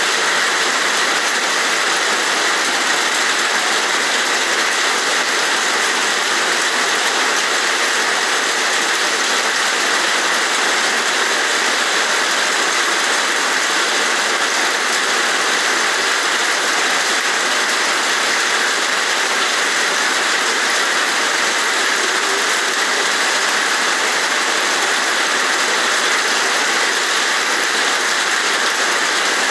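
Heavy rain falling, a steady, dense hiss of rainfall that doesn't change.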